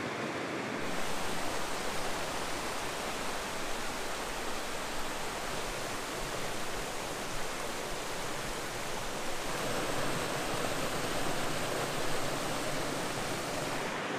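Mountain trout stream rushing over rocks and small cascades: a steady rush of water. Its tone shifts about a second in and again about two-thirds of the way through.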